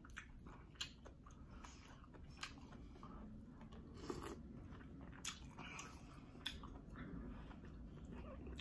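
Faint eating sounds of a person eating green-lipped mussels by hand: chewing and wet mouth noises, with a scattering of short soft clicks.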